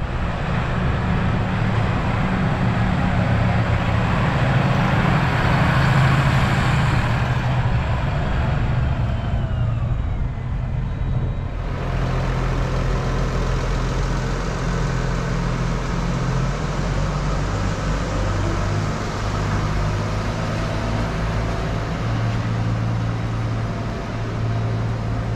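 New Holland tractor's diesel engine running steadily. Over the first half a heavy rushing noise, typical of wind, lies on top of it, and a brief falling whine comes near the middle.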